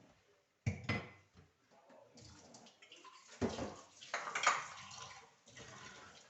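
Cooking pots and utensils clattering: two sharp knocks about a second in, then scraping and a louder run of clanks around the middle.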